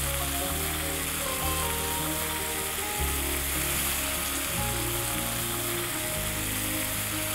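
Spice-coated braised duck sizzling steadily on a hot ridged grill pan, with background music underneath.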